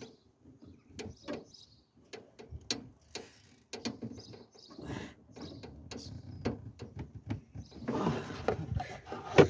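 Irregular clicks, knocks and scuffing of a hand straining to twist a Nissan NV200's clutch master cylinder counterclockwise, a part too tight to turn by hand, with sleeve rubbing close by. The scuffling grows denser and louder near the end, ending in a sharp knock.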